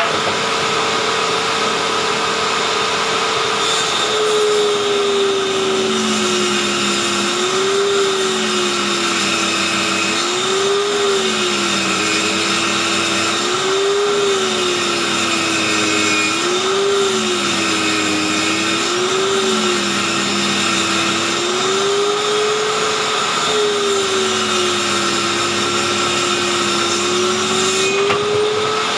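Electric hand-held circular saw, mounted under a homemade saw table, running free and then ripping a wooden board from about four seconds in: its whine drops in pitch and wavers as the blade slows under the load of each push, and climbs back to full speed near the end as the cut finishes.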